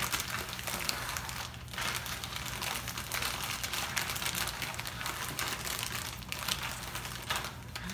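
Plastic snack wrappers crinkling as hands shuffle and slide several single-serve packets around a tabletop. The crinkling is almost continuous, with brief pauses about one and a half seconds in and near the end.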